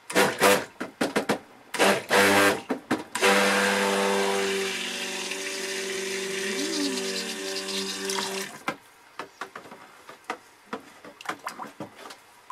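Stick blender mixing cold-process soap batter of oils and lye solution toward emulsion. It starts with a few short bursts in the first three seconds, then runs as a steady motor hum for about five seconds and stops, followed by a few light knocks.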